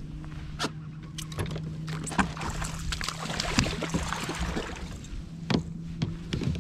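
A hooked bass splashing at the surface beside a kayak as it is played in and netted, with a dense stretch of splashing and clicks in the middle and sharp knocks of gear against the kayak, over a steady low electric hum.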